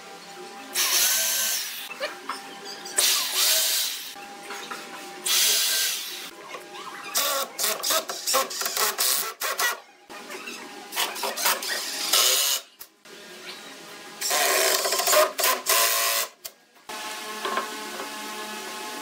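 Electric drill running in repeated bursts of one to three seconds, drilling into a pine bench frame, with short pauses between holes.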